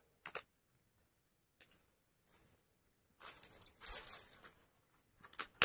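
Dry twigs and brushwood rustling and crackling as they are gathered up by hand from the ground. A few short crackles come first, then a longer rustle a little past halfway, and sharp snaps near the end.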